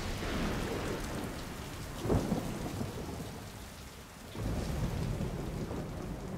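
Thunderstorm soundtrack played through an Apple HomePod 2 speaker: steady heavy rain, a sharp thunderclap about two seconds in, and a low rumble of thunder swelling up about four and a half seconds in.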